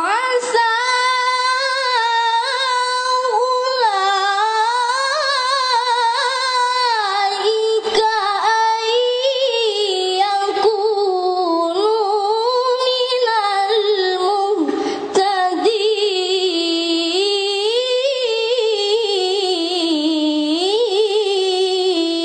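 A qari's solo voice chanting Quranic recitation (tilawah) in a high register, in long ornamented melismatic phrases that pause briefly for breath about 8 and 15 seconds in.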